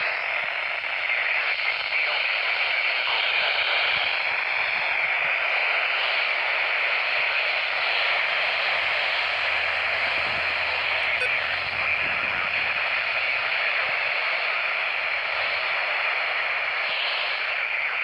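Steady static hiss from a Midland handheld weather radio's speaker as it struggles to receive a weak NOAA Weather Radio station.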